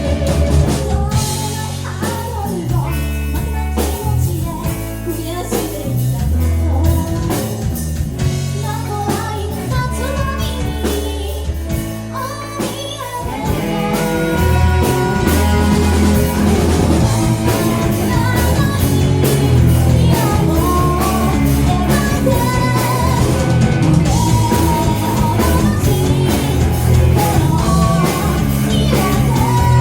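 Live rock band with drums, bass and electric guitar, with a lead vocalist singing over them. The band plays softer at first and comes in fuller and louder about halfway through.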